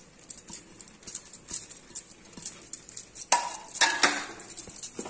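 Steel spoon and utensils clinking and scraping against a stainless steel kadai and plate as grated coconut is tipped into thick jaggery syrup. A steady run of light irregular clicks, with a louder clatter a little over three seconds in.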